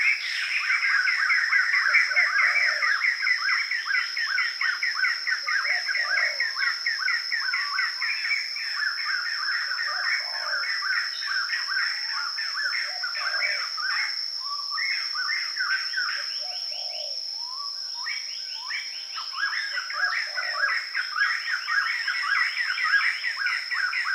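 Forest ambience: birds chirping in rapid runs of notes, with short lower calls every second or two and a steady high-pitched insect drone beneath.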